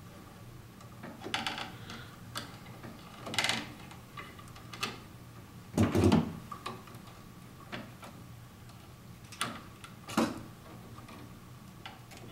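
Hands working stiff copper house wiring in a plastic electrical box: scattered clicks, scrapes and rustles as a wire nut is twisted onto the spliced white wires and the wires are bent into place. A dull knock about six seconds in is the loudest sound.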